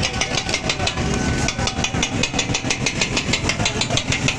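Metal scraper-spatulas rapidly chopping kabab mince on a flat metal griddle: a steady run of sharp clacks, several a second, over a low background rumble.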